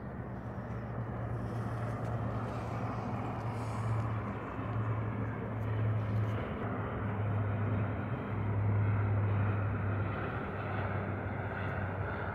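Turboprop airliner on its landing approach: a steady low propeller drone with engine hiss, growing louder as it comes closer.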